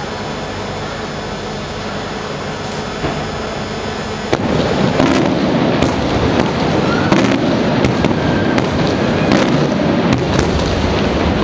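Aerial firework shells bursting: after a steady background noise, a sudden loud bang about four seconds in starts a rapid string of sharp bangs and cracks that runs on to the end.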